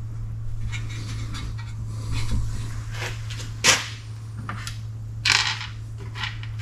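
Metal clicks and scrapes of pliers working a cotter pin through the castle nut of a car's outer tie rod end. There are a handful of sharp clicks, the loudest about halfway through, with a steady low hum underneath.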